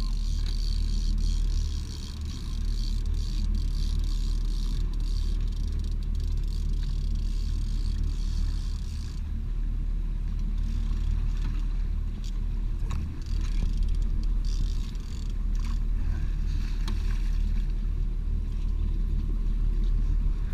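Fishing boat's engine running with a steady low hum under a constant hiss.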